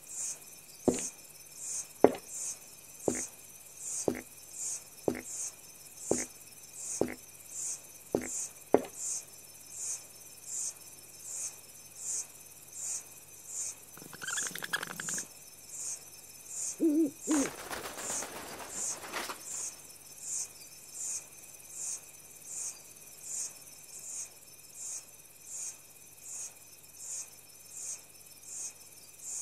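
High chirps from an insect, repeating evenly about once a second. Soft knocks come about once a second over the first nine seconds, and a brief rustle a little past the middle.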